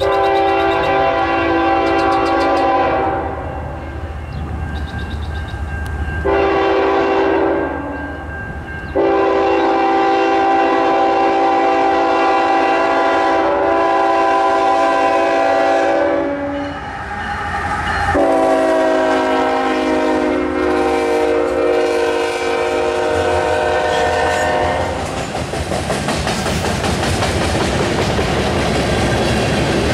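Canadian National freight locomotive's air horn, a chord of several notes, blowing four blasts as the train comes in: one ending about three seconds in, a short one, then two long ones. The horn stops and the passing train takes over, the wheels of loaded centerbeam lumber flatcars clattering over the rail joints.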